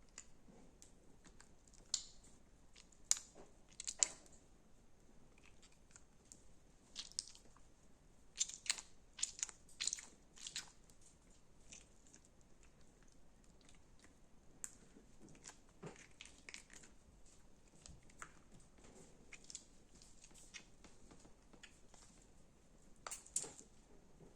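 Crunchy slime being squeezed and pressed by hand, giving off scattered sharp crackles and pops in short clusters, with quieter stretches between.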